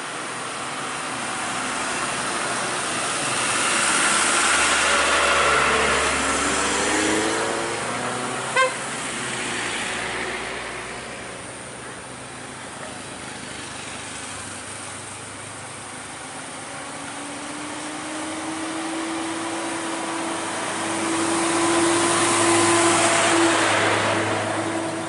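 Road traffic passing: one vehicle swells past about 4 to 6 seconds in, and a heavier engine note builds from about two thirds of the way through, passing loudest near the end. A single short, sharp toot comes about a third of the way in.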